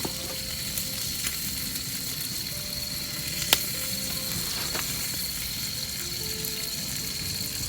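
A steady sizzling hiss, like food frying or a fire crackling, with a sharp click about three and a half seconds in.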